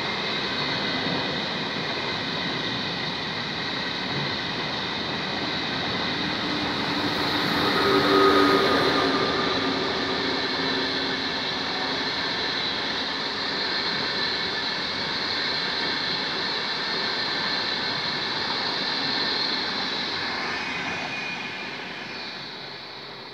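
ÖBB Railjet passenger train passing: steady rushing wheel-on-rail noise with a few held tones, loudest about eight seconds in, then fading away near the end as the cab end of the train goes by.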